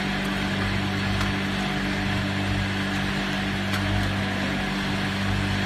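Automatic stand-up pouch packaging machine running with a steady hum, with a few faint clicks.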